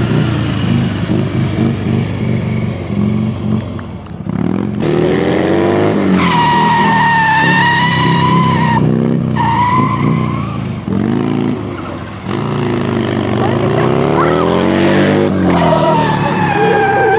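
Stunt motorcycle engine revving up and down over and over as the rider works the throttle, with the rear tyre spinning and squealing on the asphalt in long stretches, about six seconds in, again around nine to ten seconds, and near the end.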